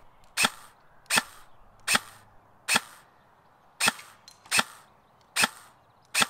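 KWA KM4 airsoft electric rifle firing eight single shots, a sharp crack roughly once a second, at a 30-metre target.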